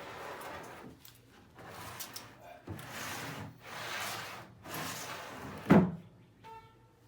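Plexiglass sliding doors of a wooden reptile enclosure sliding back and forth in their track, a run of swishes each about a second long, ending in a sharp knock as a door bumps shut. A brief faint squeak follows near the end.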